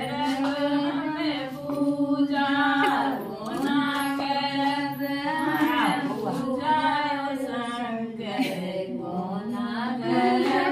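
A group of women singing a song together, drawing out long held notes with pitch glides between phrases.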